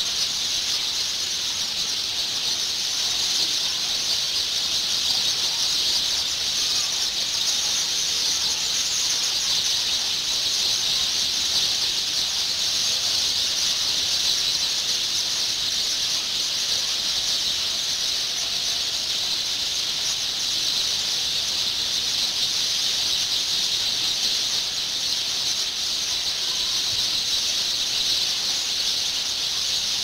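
A large flock of house sparrows chirping together in the trees at their evening roost, a dense, continuous high-pitched chatter that never pauses.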